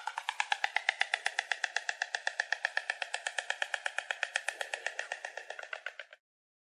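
Stork clattering its bill: a rapid, even rattle of about a dozen hard clacks a second that cuts off about six seconds in.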